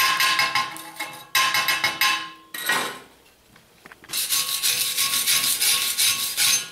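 Glassy slag being chipped off a MIG weld bead on steel plate with a pointed steel tool: two bursts of rapid taps and scrapes, with a ringing note from the metal. About four seconds in, a steel wire brush scrubs hard back and forth across the bead.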